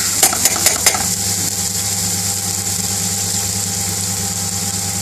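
Chopped onion and peppers sizzling in hot vegetable oil in a frying pan, with a few quick scrapes of a metal spoon against the pan in the first second, over a steady low hum.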